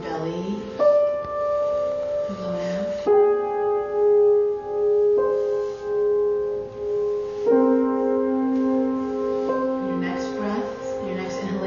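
Slow meditative keyboard music: held chords that shift to a new chord every two seconds or so, with a low wavering tone coming and going beneath them.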